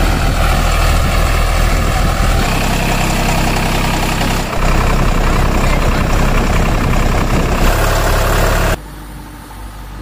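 Heavy vehicle engine sound effect dubbed over the toy play, running steadily with a deep hum. It changes abruptly a few times, like spliced clips, and drops sharply in level near the end.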